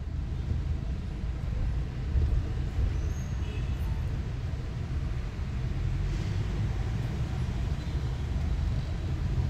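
Steady low rumble of a car's engine and running noise, heard from inside the car as it idles and creeps forward slowly in a queue.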